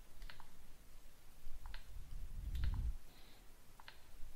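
Short, light clicks about once a second, some in quick pairs, as a Xiaomi Mi A1 smartphone's touchscreen is tapped, with a low rumble of handling near the middle.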